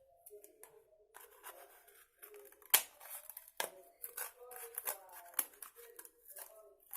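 Scissors cutting, an irregular run of snips and clicks, the sharpest nearly three seconds in.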